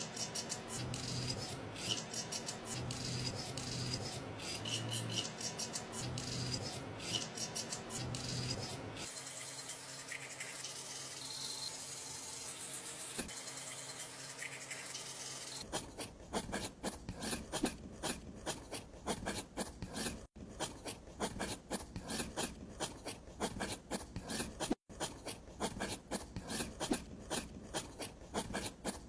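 Scraping and rasping of small hand tools working a miniature brick build, in irregular strokes at first, then a steadier hiss, then a fast run of short quick strokes from about 16 seconds in.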